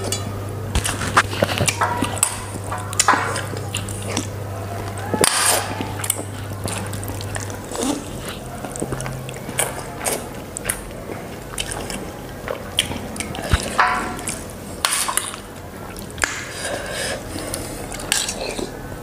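Close-miked eating of instant noodles: slurping and chewing, with metal cutlery clinking and scraping against a steel bowl at irregular moments.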